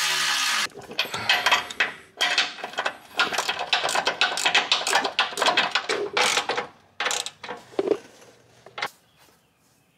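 A power drill runs and stops under a second in. Then a hand socket ratchet clicks in repeated bursts as the skid plate's mounting bolts are tightened, stopping about nine seconds in.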